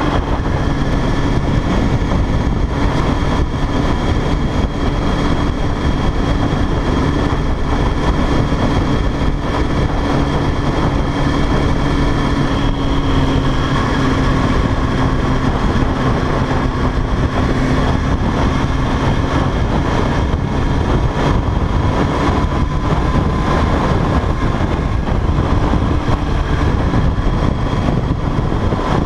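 Sport motorcycle engine running at a steady cruising speed under heavy wind rushing over the microphone. The engine note holds nearly steady, drifting only slightly in pitch.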